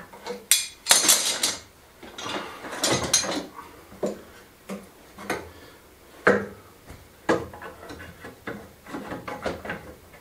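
Metal F-clamps being loosened, pulled off and swapped on a wooden cabinet frame: an irregular run of metallic clanks, clicks and rattles with knocks against the wood.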